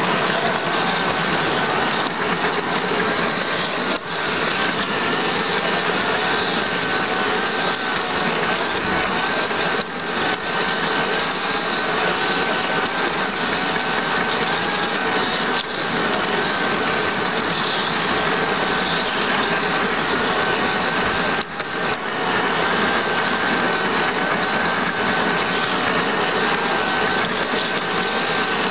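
Electric motor and gearbox of a garden-scale model locomotive running, a steady whirring rush with a faint whine, heard from a camera riding on the train, with a few brief dips in the noise.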